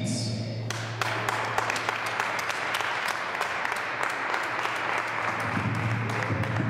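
Audience applauding, the clapping starting about a second in and carrying on steadily, over a low steady hum.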